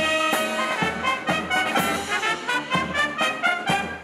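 Military brass band playing a tune, with brass notes on a regular beat.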